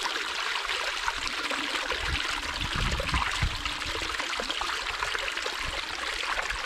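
Small moorland stream trickling and splashing over rocks, a steady rushing of water.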